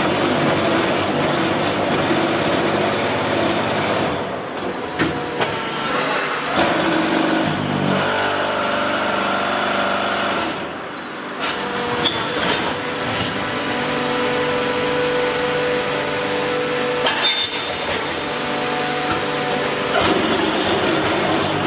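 QTM6-25 mobile egg-laying concrete block machine running through a moulding cycle: a loud, steady machine hum and whine whose pitch shifts a few times, with a few sharp knocks as the mould works and the blocks are laid.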